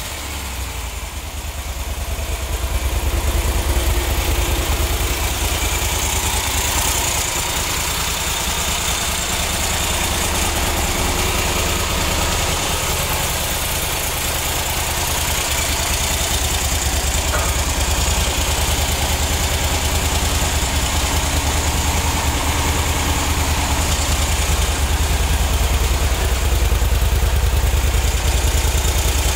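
Moto Guzzi Griso 1100's air-cooled V-twin engine idling steadily, a constant low throb.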